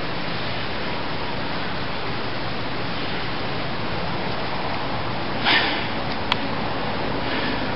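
A steady, even hiss, with a short rustling puff about five and a half seconds in and a single sharp click just after six seconds.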